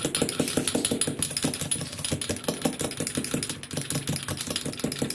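Metal fork whisking an egg yolk in a small glass jar: rapid, even clinking of the fork against the glass.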